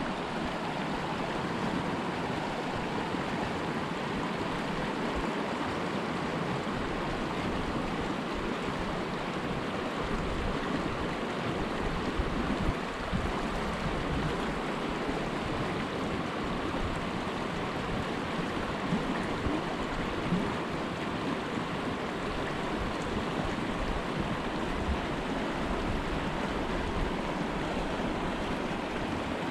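Shallow mountain creek running over rocks in riffles, a steady rush of water.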